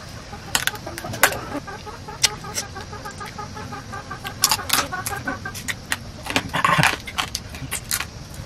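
A hen clucking in a steady repeating run, with sharp clicks and crunches of someone eating fried food close to the microphone.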